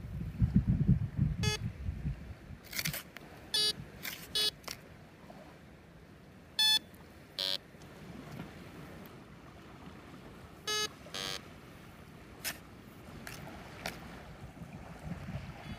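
Metal detector giving short electronic beeps, about eight of them at irregular intervals and not all at the same pitch, as its coil passes over buried metal. Wind rumbles on the microphone at the start.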